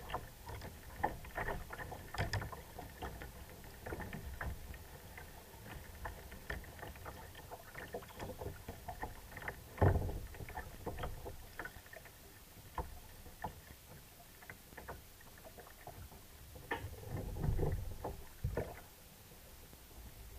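Choppy water slapping and lapping against the hull of an Ocean Kayak Trident 13 sit-on-top fishing kayak, with irregular clicks and knocks from the paddle and gear. There is a heavier thump about halfway through and a cluster of knocks near the end.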